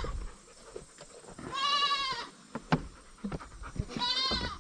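Goat kids bleating: two high-pitched, wavering bleats, about two and a half seconds apart. A sharp click sounds between them.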